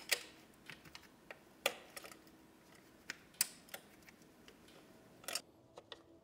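Irregular sharp clicks and knocks of a hand tool against metal, about ten in six seconds, the loudest near two, three and a half and five and a half seconds in: slip-joint pliers working a large nut on a leaking fitting under a car's bonnet.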